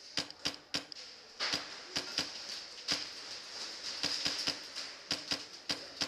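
Scattered airsoft gunfire around an indoor field: irregular sharp clicks and snaps, some coming in quick pairs or threes, over a faint steady high hiss.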